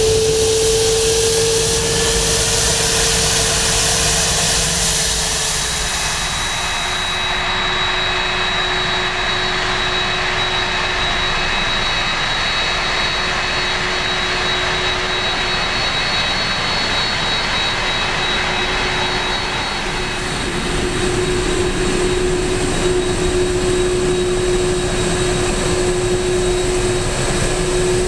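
Jet airliner engines at takeoff power: a loud, steady roar with a held low hum and a high whine. The sound changes abruptly about a quarter of the way in and shifts again later, as one aircraft's takeoff gives way to another. Near the end it is a Boeing 767 on its takeoff roll.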